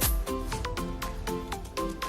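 Background music with a steady beat and a melody of short plucked-sounding notes.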